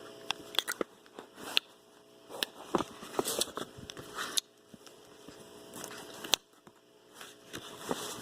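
Scattered clicks, taps and rustles of small objects being handled, with short pauses between them.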